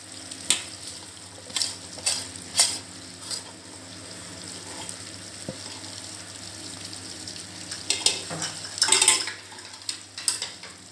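Chopped onions frying in hot oil in a clay pot: a steady sizzle with sharp pops and crackles now and then, thickest about eight to nine seconds in, over a low steady hum.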